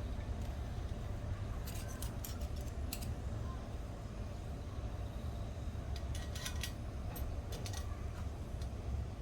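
Short, sharp clicks in quick clusters, about two seconds in and again around six to eight seconds, over a steady low rumble.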